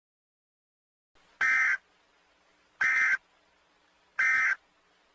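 Emergency Alert System end-of-message data bursts: three short electronic screeches about a second apart, signalling the end of the alert.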